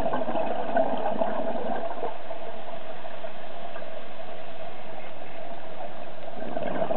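Underwater ambience picked up through a diving camera's housing: a steady hiss with fine crackling, and a low burbling of a diver's exhaled regulator bubbles in the first two seconds that returns near the end.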